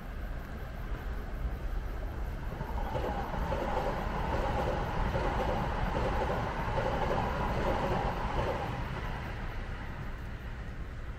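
An electric commuter train passing, its running noise swelling about three seconds in and fading away near the end.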